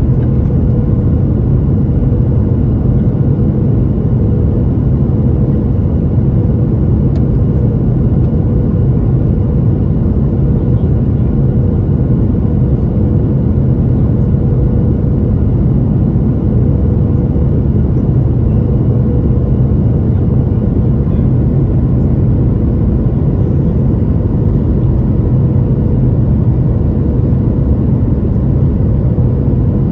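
Steady cabin noise inside a Boeing 737 descending on approach to land: a low rumble of jet engines and rushing air heard over the wing, with a faint steady hum running through it.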